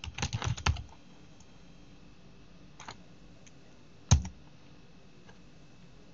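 Typing on a computer keyboard: a quick run of keystrokes in the first second, a single key tap about three seconds in, then one louder knock about four seconds in.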